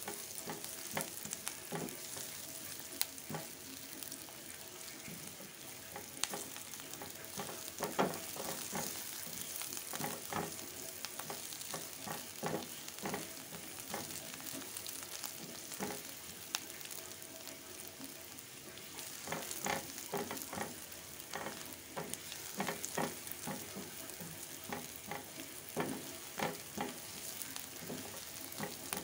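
Sliced shallots, garlic and red chili sizzling in oil in a pan as they are sautéed until wilted and fragrant. A silicone spatula stirs them with frequent, irregular scrapes and taps against the pan.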